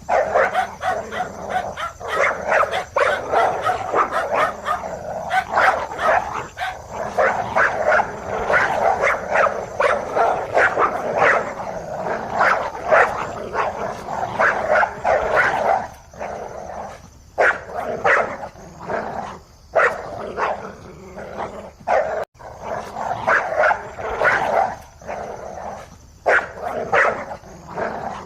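Several dogs barking at once, the barks overlapping in a dense, continuous chorus, a little sparser in the later part.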